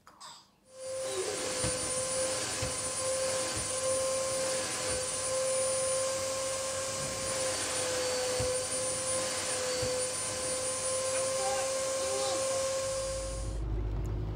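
An electric appliance's motor and fan running with a steady whine over a rushing noise, switched on about a second in and cut off abruptly shortly before the end.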